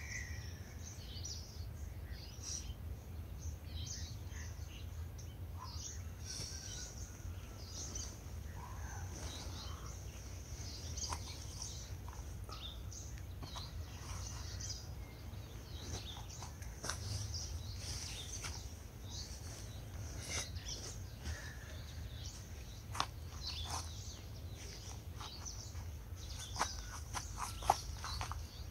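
Birds chirping and calling in many short, scattered notes, over a steady low rumble. A few sharp clicks come near the end.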